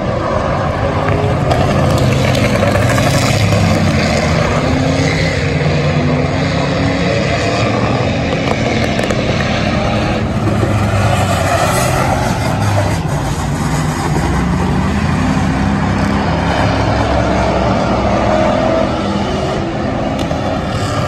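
Several derby car engines running and revving together, loud and steady. About ten seconds in, a harsher metallic scraping joins in as a wrecked car drags along the track throwing sparks.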